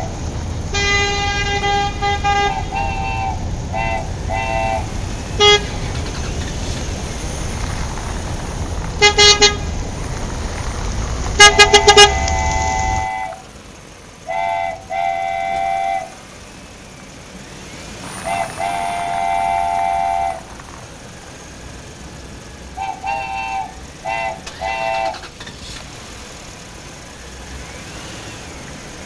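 Vehicle-horn honks repeated in clusters, short toots and longer blasts of a multi-note horn. A few sharp, loud clicks come with the horns about a third of the way in. A steady low rumble underlies the first half and cuts off abruptly near the middle.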